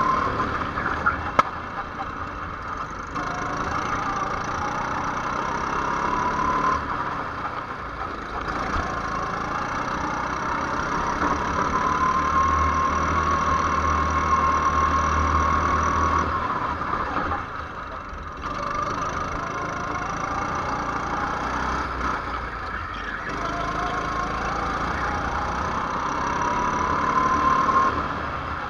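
Go-kart engine heard from on board, its pitch climbing steadily along each straight and falling away for the corners, several times over. A sharp click about a second and a half in.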